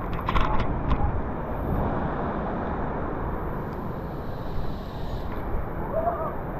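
Steady rushing noise of a river while wading through it, with a few short knocks in the first second.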